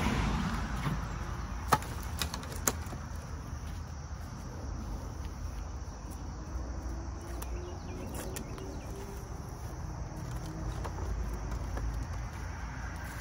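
Split firewood knocking as pieces are set into a wooden bundling rack: three sharp knocks in the first three seconds. After that, a low steady outdoor rumble with faint insect chirring.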